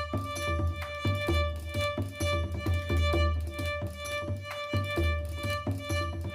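Folk-style music: a fiddle-like melody over a steady drone, with a drum beating two to three times a second.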